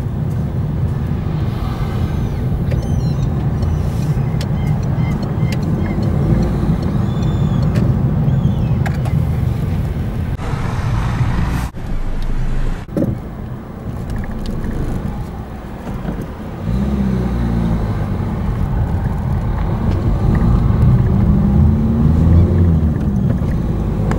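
Car driving, heard from inside: steady engine and road rumble, with two sharp jolts about twelve seconds in as the wheels cross the railway level crossing, and the engine note rising and falling in the second half as the car gathers speed.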